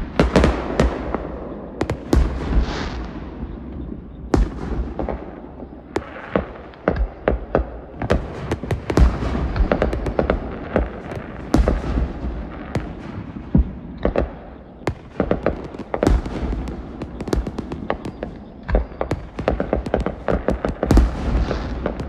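Fireworks display: a dense, unbroken run of booms and sharp pops and crackles, several bursts a second, over a constant low rumble. The loudest bursts come about nine seconds in and near the end.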